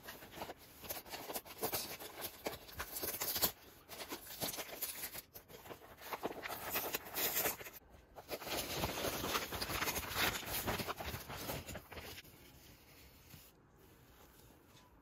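Packaging being handled and unwrapped: rustling and crinkling with many small clicks, dying down about twelve seconds in.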